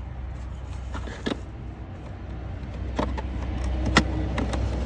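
Sharp plastic clicks and knocks as a replacement glove box latch mechanism for a Ford Mondeo Mk3 is pushed into place, the loudest about four seconds in, over a steady low hum.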